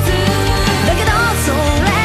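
Energetic pop-rock music with a steady beat and a gliding, wavering melodic lead.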